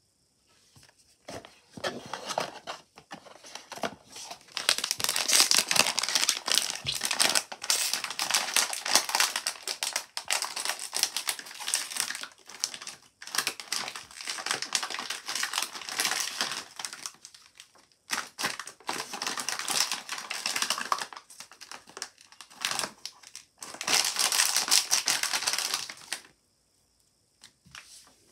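Crinkling of a blind-box figure's plastic-foil packaging bag as it is handled and opened, in long crackling bouts with a few short pauses, stopping a couple of seconds before the end.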